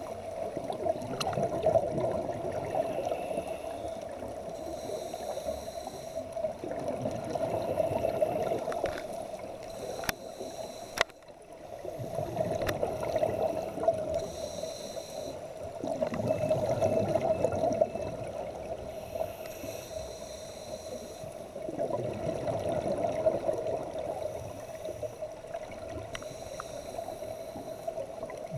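Scuba diver breathing through a regulator, heard underwater: exhaled bubbles rush and gurgle in swells of two to three seconds, about every five seconds, with quieter inhalations between and a few faint clicks.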